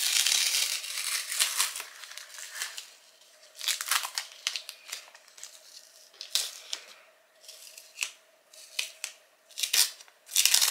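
Masking tape being peeled off the edges of watercolour paper, making ripping hisses. A long rip comes at the start and another near the end, with shorter rips and crinkles between them.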